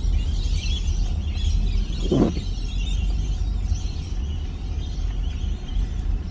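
Car cabin noise while driving: a steady low road rumble with a hiss of tyres and air, and one brief louder sound about two seconds in.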